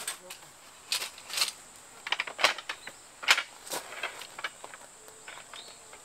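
A folding wooden slat-top camp table being unfolded and set down on gravel: a run of sharp knocks and clatters from its slats and metal legs. Under it, a steady high-pitched insect trill.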